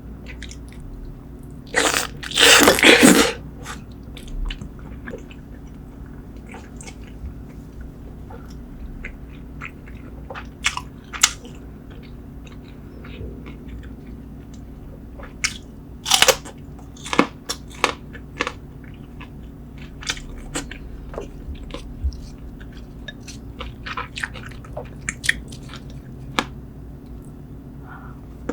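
A person chewing food close to the microphone: wet smacking and scattered crunchy clicks, with a louder noisy burst about two to three seconds in.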